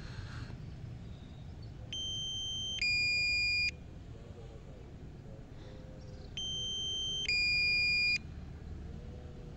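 Electronic two-tone beeping: a higher tone held for about a second, then a lower tone for about a second. The pair comes twice, about four and a half seconds apart, over a low steady rumble.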